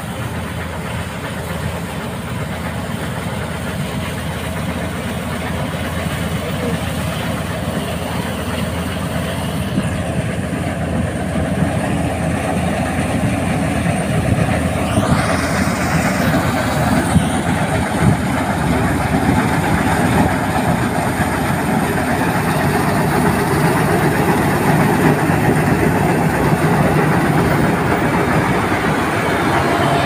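Compact paddy combine harvester running as it cuts ripe rice: a steady, dense mechanical din that grows gradually louder as the machine comes closer.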